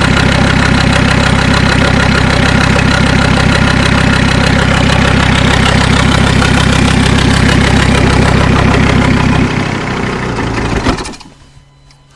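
Mercedes 2.7 CDI five-cylinder diesel idling with a fast, even knock that the owner takes for the hydraulic valve lifters. About nine and a half seconds in it is switched off, runs down and stops at about eleven seconds.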